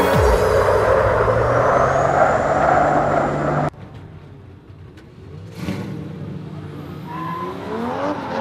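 Drift cars at full throttle with tyre squeal. The sound cuts off abruptly about a third of the way in. After a quieter stretch with a sharp crack, an engine revs up with rising pitch near the end.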